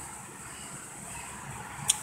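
Quiet background hiss with one short, sharp click near the end as the homemade telescoping rebar wheelie bar is moved.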